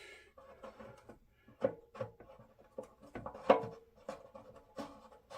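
Irregular small metal clicks and taps, some with a brief ring, as the coupling nut joining a rebuilt petcock to a 1976 Harley-Davidson SS 250 fuel tank is turned by hand onto its threads.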